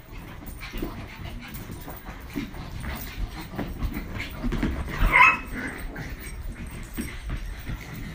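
Small dogs, pugs among them, playing rough: short scuffles and dog noises throughout, with one sharp high-pitched yip about five seconds in.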